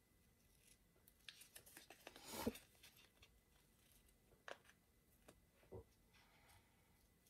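Small craft scissors snipping a washi sticker sheet: a few faint, short snips spread out, with the sheet being handled. The loudest is a brief burst of paper noise about two and a half seconds in.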